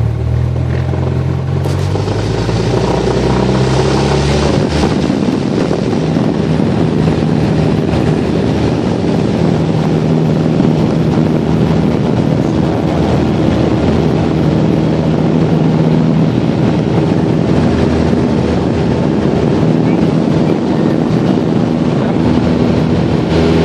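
Light aircraft's piston engine and propeller running loudly and steadily, heard inside the cabin as an even hum with a few steady engine tones; the tones step up in pitch a few seconds in.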